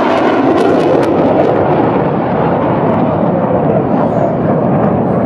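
Military fighter jet's engine roar during a low airshow pass, a loud steady rush of noise.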